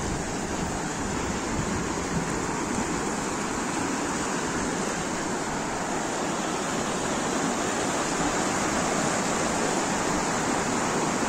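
Steady outdoor rushing noise with no distinct events, growing a little louder near the end.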